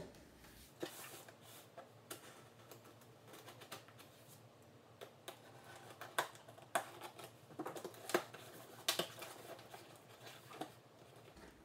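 Utility knife slitting the packing tape on a cardboard shipping box, with irregular scrapes, clicks and crackles of blade, tape and cardboard flaps.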